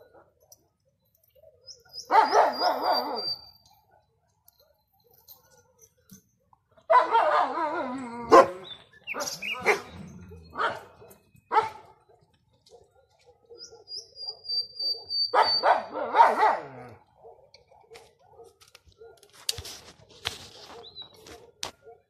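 A dog barking in three bursts of rapid barks, with scattered single barks between them. Twice, a nightingale's high drawn-out whistle sounds just as a burst begins.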